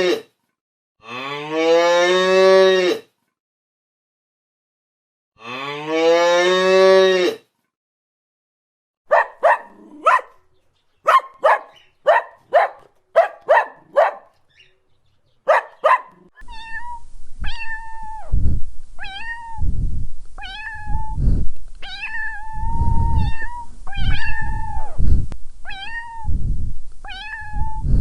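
A cow mooing twice in long calls, then a quick series of short cat meows, then a cat meowing repeatedly over a low rumbling background.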